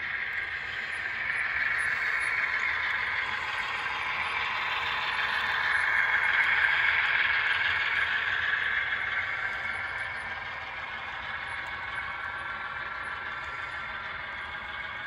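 Model freight train running past on the layout: a steady whirring clatter of the locomotive's motor and the cars' small metal wheels on the rails, growing louder as the locomotive comes closest about halfway through, then easing as the freight cars roll by.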